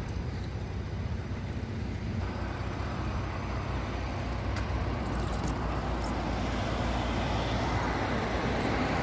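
Steady low rumble of a running vehicle engine with road and traffic noise. About two seconds in, a hiss fills in higher up, and the whole grows gradually louder.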